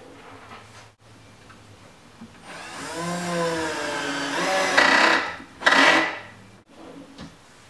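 Cordless drill/driver driving a screw through a metal drawer slide into the plywood cabinet side: a motor whine that wavers in pitch as the screw goes in, then two short louder bursts near the end.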